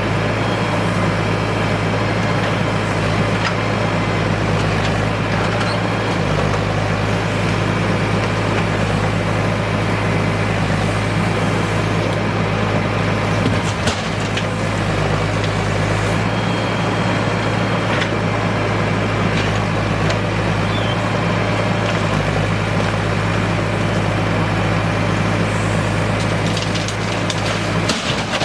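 Heavy diesel engine running steadily at constant speed, with a short knock about halfway through and a few more near the end.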